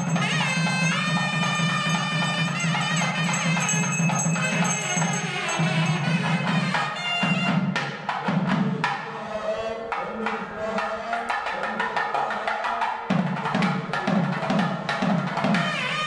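South Indian temple music: a reed-pipe melody with bending, gliding notes over a steady drone, with drumming. The drone drops out for a few seconds midway and then returns with a pulsing beat.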